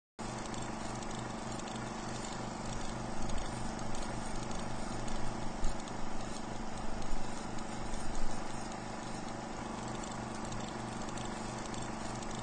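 Film projector running: a steady whirr and hum with a fast, even mechanical pulse, and louder irregular knocks through the middle.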